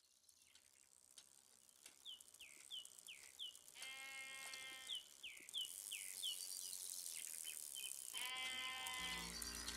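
Sheep bleating twice over a run of high, quick falling chirps, fading in. A low steady drone starts near the end as the music comes in.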